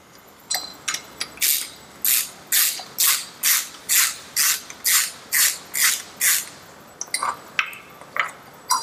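Socket ratchet being worked back and forth to back out a bolt on an outboard's exhaust outlet: about eleven short bursts of pawl clicking, roughly two a second. A few light metal clicks and clinks follow near the end as the part is freed.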